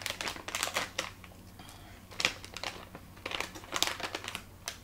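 Crinkling plastic wrapper of a Maltesers bag as it is opened and rummaged in by hand, in irregular clusters of sharp crackles.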